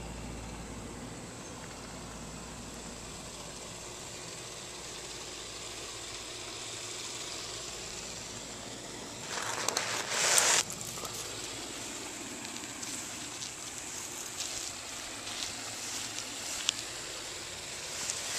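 Handling noise on a handheld camcorder's microphone: a steady hiss, a loud rubbing rustle about halfway through as a hand and chain come right up to the camera, then scattered small clicks and knocks as the camera is moved.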